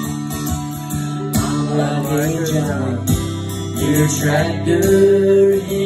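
Acoustic guitar strummed live, with a man's voice singing a wavering melodic line over it from about a second and a half in.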